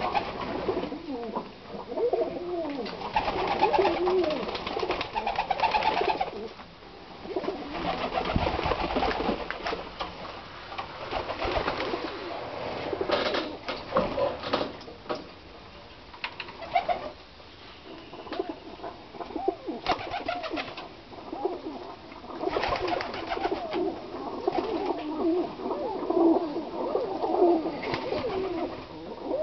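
A loft full of domestic pigeons, Hungarian High Flyers and Tipplers, cooing continuously, many low calls overlapping and swelling in waves, with occasional sharp clicks among them.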